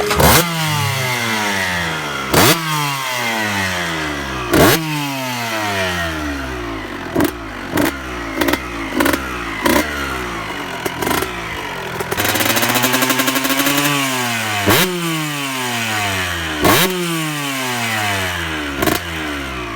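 Freshly rebuilt 1998 Kawasaki KX125's 125 cc two-stroke single-cylinder engine being revved: sharp blips of the throttle that fall back slowly to idle. There is a quick run of short blips in the middle and one longer held rev about twelve seconds in.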